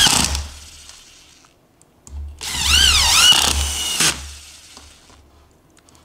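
Cordless drill drivers driving wood screws into a softwood board: a motor whine that dips and rises in pitch as each screw bites. One screw finishes just after the start, and another is driven from about two to four seconds in.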